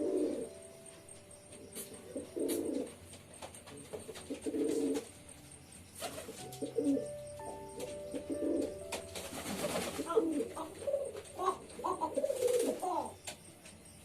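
Pigeons cooing in low bouts about two seconds apart, building to a denser run of overlapping coos near the end.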